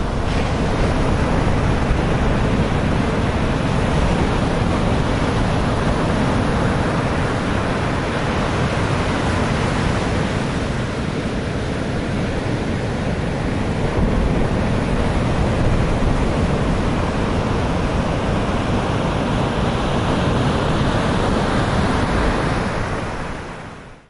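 Rough sea surf crashing against a concrete sea wall: a loud, steady wash of breaking waves and spray, with wind rumbling on the microphone.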